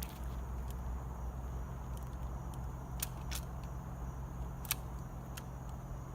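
A motor vehicle's engine running steadily with a low hum, with a few faint clicks about halfway through.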